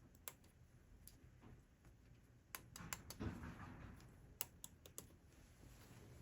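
Faint scattered clicks of the footswitch buttons on a Line 6 Pod foot controller being pressed, a few near the start and a quick run of presses between about two and a half and five seconds in.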